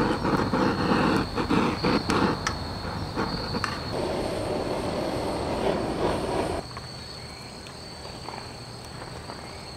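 Crickets or similar insects trilling on one steady high note throughout. Over the first few seconds, scattered clicks and knocks from handling gear sound over it. About two-thirds of the way in, everything else drops away suddenly and only the insect trill is left.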